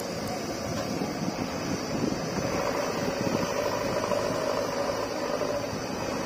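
JCB 3DX backhoe loader's diesel engine running steadily under working load as the backhoe loads mud into a tractor trolley, with a faint steady whine above the engine noise through the middle.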